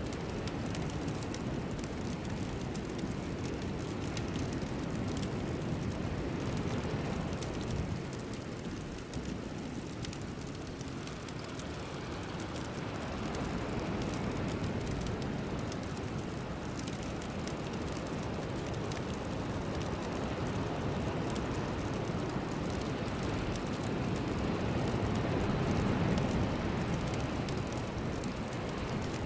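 Steady rain-like rushing noise from a meditation sound bed, with no tones or voice. It swells and eases slowly in long waves, loudest near the end.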